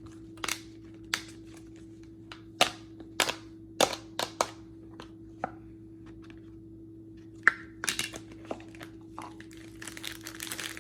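Plastic packaging of a dog ice cream mix cup being opened and handled: a string of sharp, irregularly spaced clicks and snaps, turning into denser crinkling near the end.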